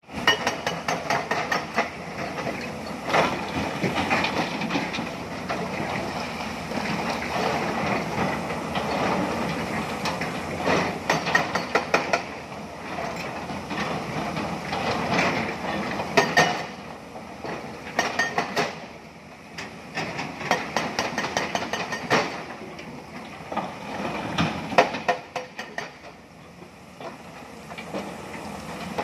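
XCMG hydraulic excavator's diesel engine running while it loads broken stone into a steel dump truck body, with rocks clattering and banging against the bed and each other. Several sharp knocks stand out above the steady engine sound.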